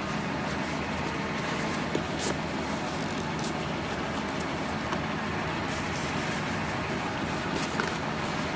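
Steady background noise with a few soft clicks and rustles of hands handling leather upholstery trim and a thin cord.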